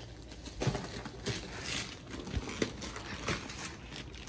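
Gift wrapping paper rustling and crinkling as presents are handled and unwrapped, with a few light knocks against the boxes.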